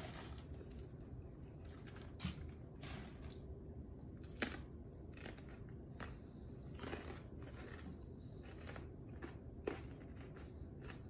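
Fresh jalapeño peppers being bitten and chewed: faint mouth chewing with a few sharp crunches scattered through.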